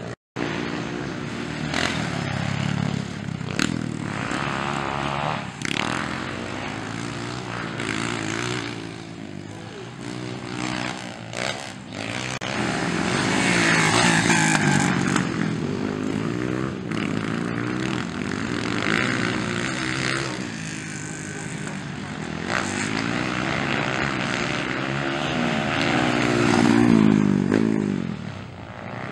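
Four-stroke 230cc motocross bikes racing on a dirt track, their single-cylinder engines revving up and down through throttle changes and shifts. One bike passes close and loud about halfway through, and another near the end.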